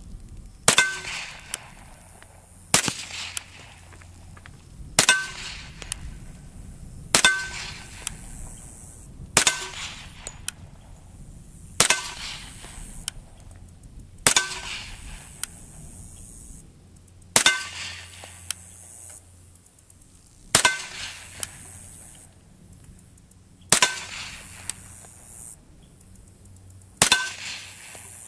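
Eleven suppressed shots from an H&K Mark 23 .45 ACP pistol with its KAC suppressor, one every two to three seconds. Each shot is followed by the ring of a struck steel plate target.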